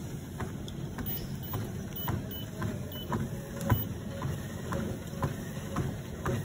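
Footsteps on a running treadmill: about two to three steady footfalls a second thudding on the moving belt over the machine's steady low hum.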